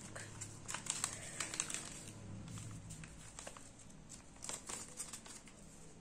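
Origami paper rustling and crinkling as hands fold and crease it: clusters of short crisp rustles through the first two seconds and again about four and a half seconds in, with a quieter stretch between.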